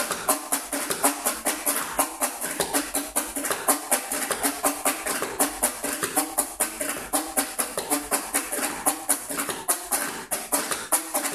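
Fast hand percussion: a quick, even stream of sharp taps and slaps, several a second, with regularly accented strokes.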